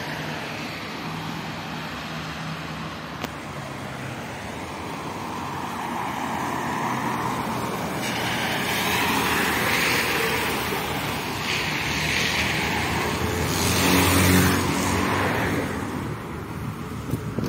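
LiAZ-677M city bus with its V8 petrol engine running as it approaches and pulls in, engine and tyre hiss on the wet road growing louder to a peak a few seconds before the end and then easing, over background road traffic.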